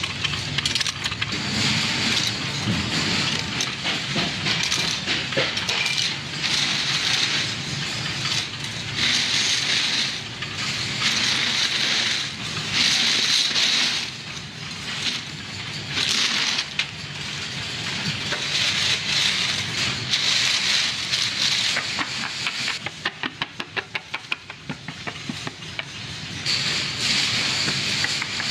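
Pencil factory machinery running: a hiss that comes and goes in stretches of a few seconds over a low rumble, with a run of rapid clicks, about four a second, a little past the middle.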